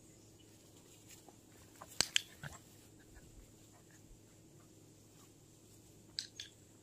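Quiet background broken by two pairs of short, sharp clicks, one pair about two seconds in and another near the end.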